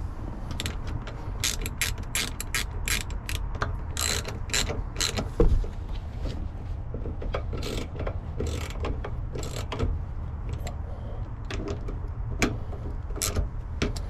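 Ratchet wrench clicking in quick, irregular runs of short sharp clicks as the mounting bolts of a newly fitted T-handle gear shifter are tightened down.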